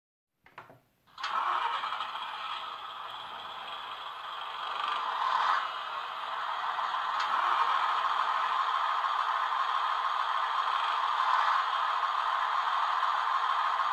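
N-scale model Desiro train running: a few small clicks, then from about a second in a steady rattling whir that grows slightly louder.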